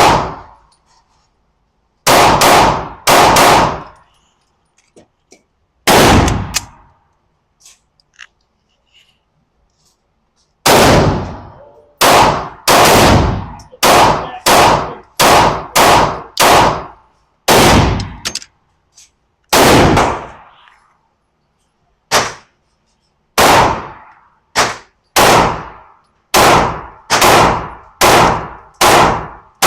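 Smith & Wesson M&P 2.0 pistol fired over and over, each shot ringing out briefly. There are a few single shots and short pairs early on, then rapid strings of about two shots a second from around ten seconds in.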